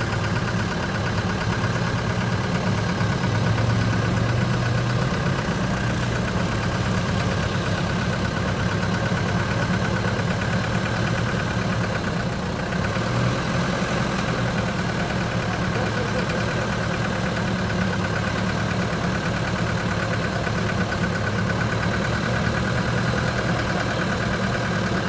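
UAZ off-roader's engine idling steadily, with no revving.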